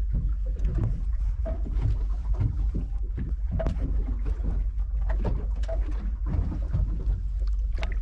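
Small fishing boat at sea: a steady low rumble, with irregular knocks and slaps on top.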